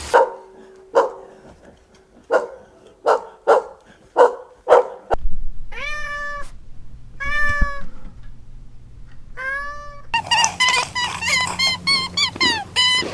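A cat meowing: a string of short clipped calls, then three longer drawn-out meows. About ten seconds in, rapid bird chirping takes over.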